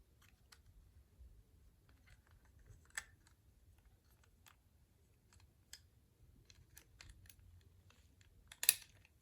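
Scattered small clicks and taps of plastic toy parts and screws being handled, with a sharper click about three seconds in and a louder clatter near the end.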